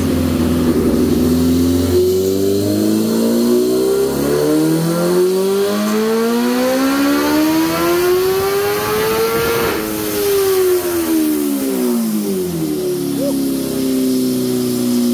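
Stage 3 Kawasaki Ninja H2's supercharged inline-four engine making a dyno run. The revs climb smoothly for about eight seconds, then fall back over the next three and settle at idle near the end.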